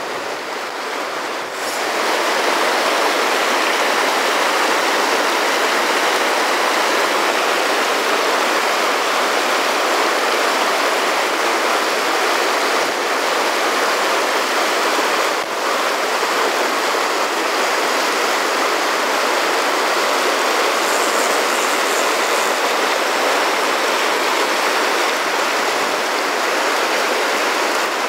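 Fast rapids of a rocky mountain river, whitewater rushing over and around boulders in pocket water: a steady, loud rush of water that grows louder about two seconds in.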